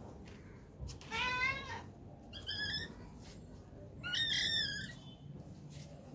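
Cat meowing three times, short arched meows, the second and third higher-pitched than the first, begging for the fish held above it.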